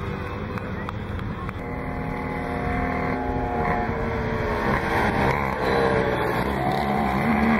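Several NSU Quickly mopeds' small 49 cc two-stroke single-cylinder engines buzzing at full throttle while racing, their pitches rising and falling against each other. The sound grows louder over the second half as the riders come up close and pass.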